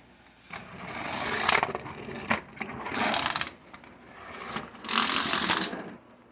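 Pullback motor of a small plastic Optimus Prime toy buzzing as the toy is rolled back and forth to wind its spring so it will burst open. It comes in three buzzing runs.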